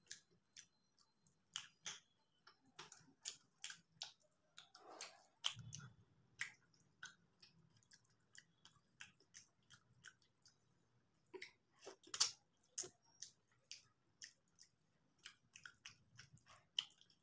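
Quiet, close-miked eating sounds: chewing with many short, wet mouth clicks and smacks, coming irregularly.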